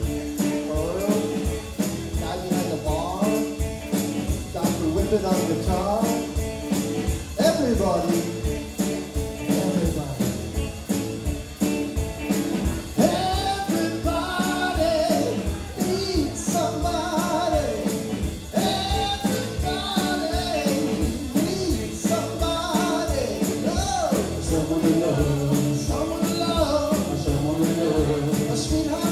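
Live rock band playing a song: drum kit, electric guitars and bass keep a steady beat under a lead melody line.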